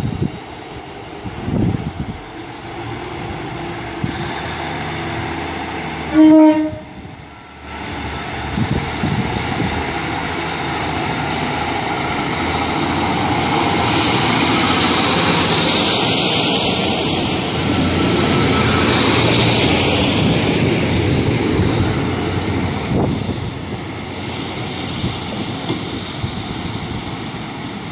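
Class 150 Sprinter diesel multiple unit, Cummins diesel engines, sounding a short blast on its two-tone horn about six seconds in as it sets off. Its engines then work harder as it accelerates past, with the rush of the carriages going by growing loudest midway and easing off as it moves away.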